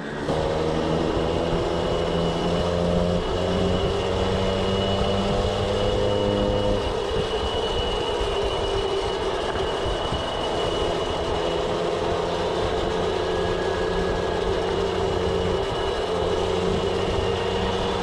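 Peugeot 103 moped's small two-stroke engine running steadily under way. Its pitch eases slightly over the first few seconds, then holds.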